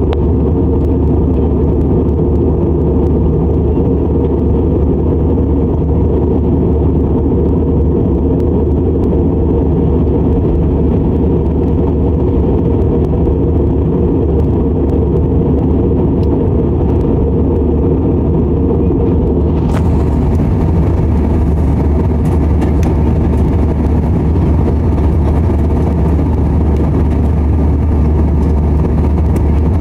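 Steady low drone of airliner cabin noise in flight, the engines and the airflow along the fuselage, with a click about two-thirds of the way through.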